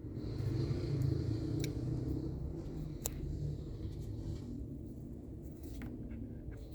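Faulty RCF powered loudspeaker giving off a low rumbling noise, the fault that makes it cut out. The rumble swells about a second in and slowly fades, with a few faint clicks.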